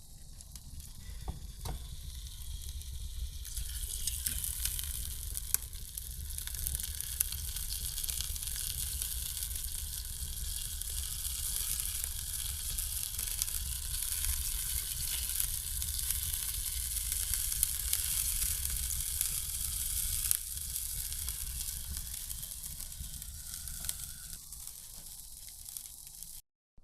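Food sizzling as it fries in a pan over a fire, a steady hiss with small crackles that grows louder about four seconds in and eases off near the end.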